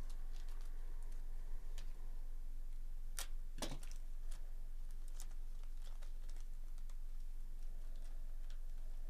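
Foil wrapper crinkling and crackling as it is unfolded by hand, in scattered small crackles with a louder crinkle about three and a half seconds in.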